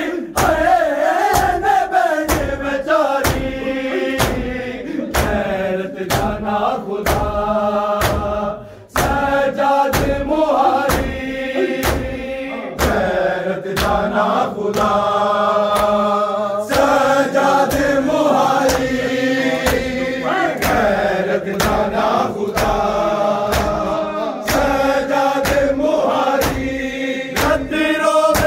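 A crowd of men chanting a noha together, kept in time by the steady, evenly spaced slaps of open hands striking bare chests in matam. The chant and the beat break off briefly about nine seconds in.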